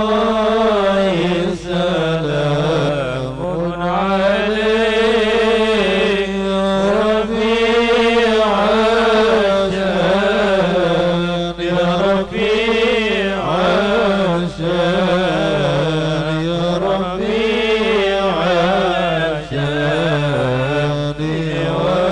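Men chanting an Arabic sholawat, devotional praise of the Prophet, without instruments. A lead male voice on a microphone holds long notes that waver and bend in pitch.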